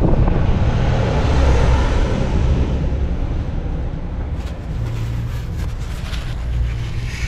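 Steady low outdoor background rumble, with a rushing noise that swells and fades over the first three seconds. Soft rustling and crinkling of a paper towel being handled near the end.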